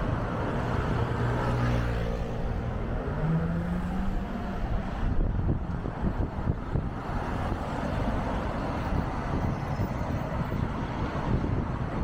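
Busy city street traffic heard from a moving bicycle: a motor vehicle's engine runs close by and rises in pitch as it pulls away about three seconds in, over steady road rumble.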